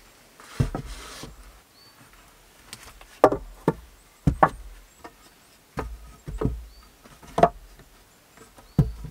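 Wooden poles and logs knocking against each other as they are handled, about nine irregular knocks, some in quick pairs, with a brief rustle about half a second in.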